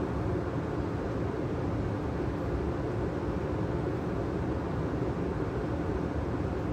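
2012 Carrier gas furnace's blower running steadily after the burners and inducer motor have shut off: a constant air rush with a faint hum, the fan still on its off-delay before it stops.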